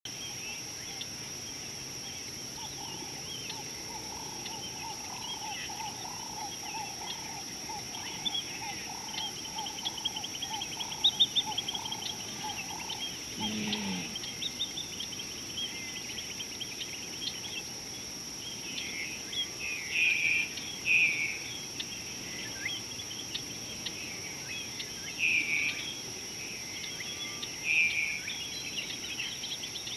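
Wild bush ambience: a steady high-pitched insect drone, with birds chirping and calling on and off, the calls louder in the second half. A trilling call runs through the first half, and a short low call falls in pitch about halfway through.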